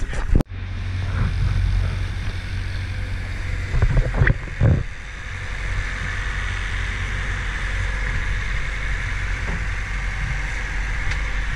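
A boat's engine running steadily under way, with water rushing past the hull. A few knocks come about four to five seconds in.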